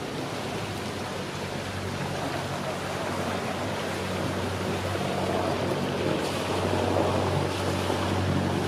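Motor cruiser's inboard engine running at low revs, a steady low hum that grows slightly louder as the boat comes in toward the mooring, under a steady hiss of wind and water.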